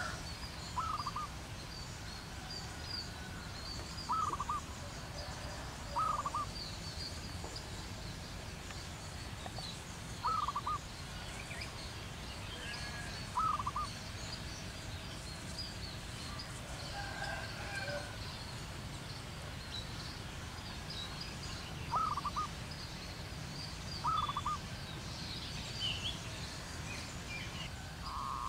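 Wild birds calling: a short, rolling call repeated about eight times, a few seconds apart, with a longer pause in the middle, over constant faint high-pitched chirping of small birds and a steady low outdoor rumble.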